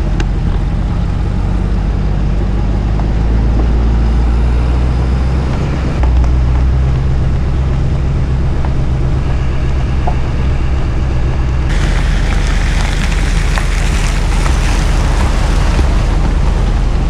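Car driving, its engine running steadily under road noise. About twelve seconds in, a louder hiss of tyre or wind noise sets in.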